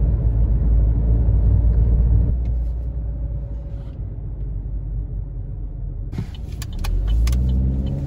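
Inside a moving car's cabin: a steady low rumble of road and engine noise while driving slowly through city streets. The rumble eases for a few seconds, then a run of sharp clicks and knocks comes in near the end as the rumble swells again.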